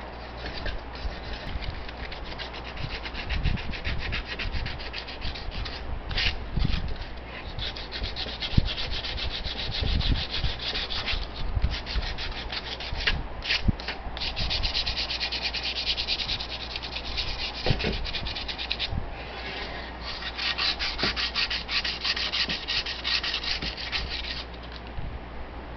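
Hand sanding of a metal Coleman 413-H stove part to clean it up for paint: fast back-and-forth abrasive strokes in several spells with short pauses between, and a few knocks as the part is handled.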